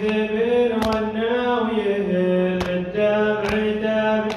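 A male radood chanting a Shia mourning lament solo, holding drawn-out melodic notes that bend and waver in pitch without clear words. A few short, sharp hits sound over the voice.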